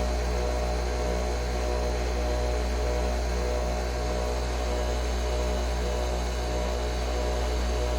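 Nespresso Vertuo Pop+ coffee machine running with a steady mechanical hum, a quick regular pulsing low in the sound.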